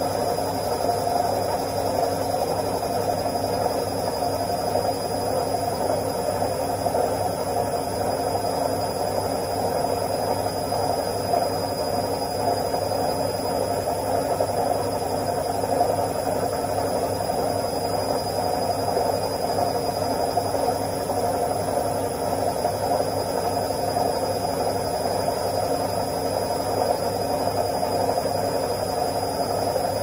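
Front-loading washing machine on its spin cycle: a steady whirring hum from the spinning drum and motor, unchanging throughout.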